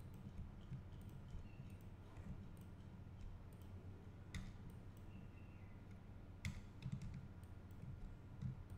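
A few sharp, isolated computer mouse clicks over a faint steady low hum, the clearest about four and a half and six and a half seconds in.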